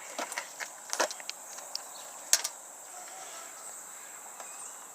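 Scattered light metallic clicks of a hand wrench working a stubborn battery cable bolt, the loudest a bit over two seconds in, then quieter. Crickets chirp steadily in the background.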